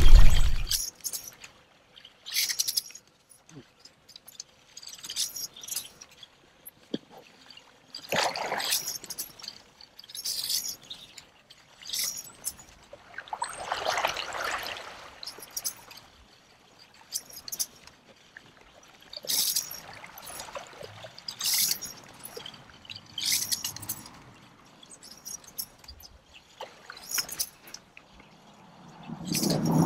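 Fishing lures being cast from a kayak again and again: short swishing splashes every second or two as each lure lands in the river.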